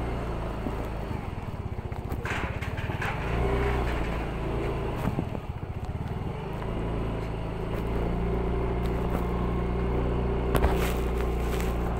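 Small motorbike engine running steadily while being ridden, pulling harder about three seconds in and again from about seven seconds on.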